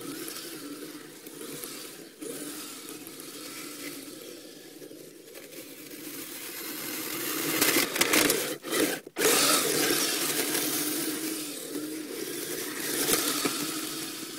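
Electric motor and plastic tracks of a Kyosho Blizzard SR radio-controlled tracked vehicle running, a steady motor whine with scraping and rattling from the drive. It swells to its loudest past the middle and cuts out twice briefly, as the throttle is let off and reapplied.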